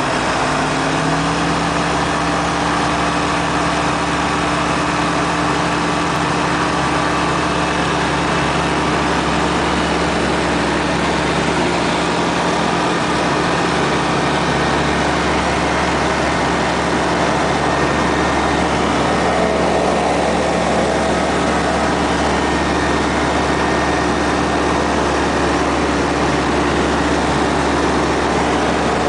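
Vega ultralight aeroplane's propeller engine at takeoff power, heard from inside the cockpit. It rises in pitch within the first second, then holds a steady note through the takeoff roll and climb, over a constant rush of propeller and air noise.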